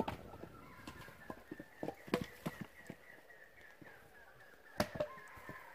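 Firewood logs knocking and thudding as they are handled and tossed onto a woodpile, with scattered light steps in the brush. There is a clear knock about two seconds in and two close knocks about five seconds in.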